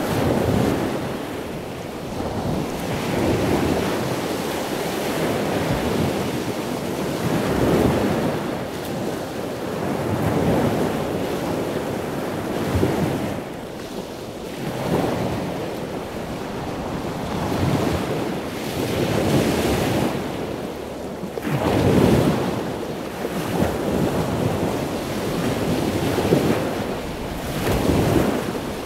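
Ocean surf, waves breaking and washing in and out one after another, swelling and falling every few seconds, with a steady rush of wind.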